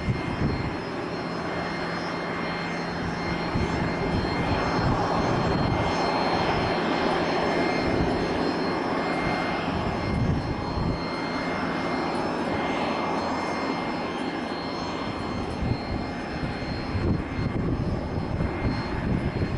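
Jet airliner engines running, a steady rush with a thin high whine, with wind buffeting the microphone in gusts.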